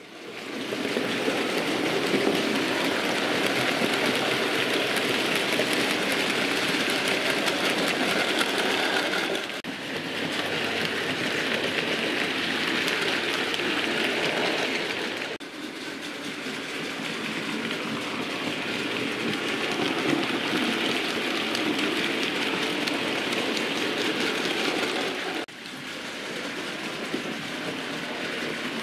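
Analogue DC model railway locomotives running around the layout's track, a steady running noise of motors and wheels on rail. It fades in at the start and changes abruptly about 10, 15 and 25 seconds in.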